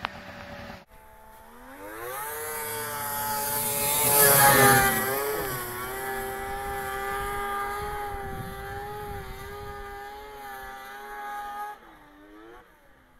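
1997 Yamaha Mountain Max snowmobile's triple-cylinder engine revving up and running hard at high, steady revs as it climbs a steep snow slope. It is loudest about four seconds in. Near the end the throttle comes off and the engine note falls away.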